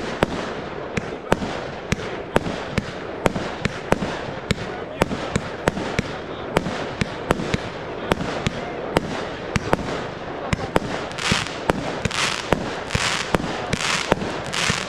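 Fireworks display: a rapid, steady string of small aerial shells bursting, about three sharp bangs a second. In the last few seconds, bursts of hissing crackle come in, about once a second.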